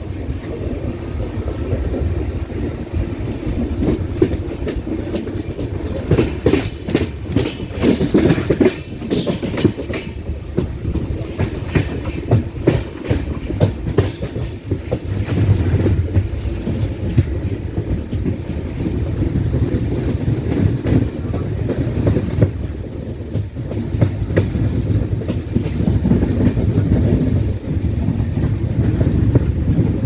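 Indian Railways passenger coach running along the line, heard from its open window: a steady rumble of wheels on rail with the clickety-clack of the rail joints, and a run of rapid clattering about six to ten seconds in.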